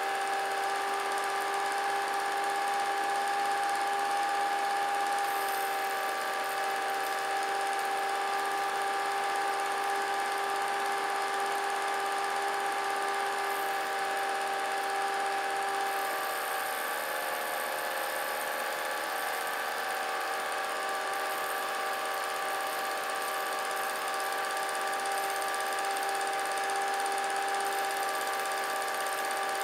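Steady whine of a small motor: several held tones over a hiss, which shift slightly about two-thirds of the way through.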